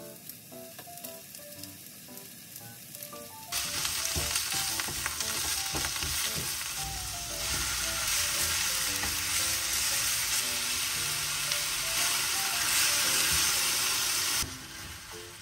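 Onion and pork slices sizzling in hot oil in a nonstick wok as they are stir-fried; the sizzle turns much louder about three and a half seconds in and drops back near the end. Soft background music with a simple melody plays underneath.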